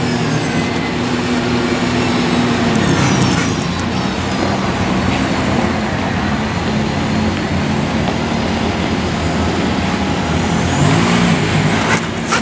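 ATV engine running as the tracked quad drives on pavement. The engine speed rises and falls, with a rev climbing in pitch near the end.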